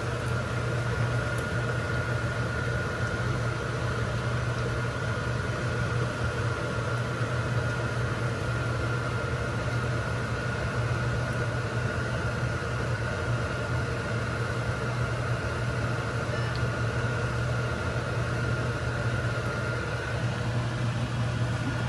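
Egg-dipped bread frying in oil in a pan, sizzling steadily, under a constant low machine hum with a thin steady tone above it.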